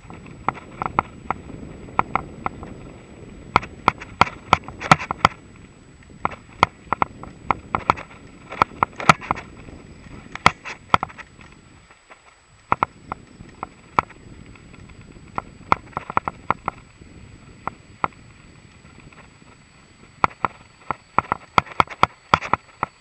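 Mongoose Salvo Comp full-suspension mountain bike riding over a bumpy sand-and-dirt trail: frequent sharp rattles and clacks over a low rumble of tyres and wind, easing briefly about halfway through.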